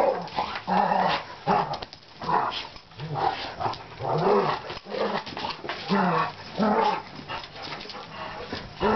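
Dogs growling and grumbling while they play-fight, a string of short growls that rise and fall in pitch.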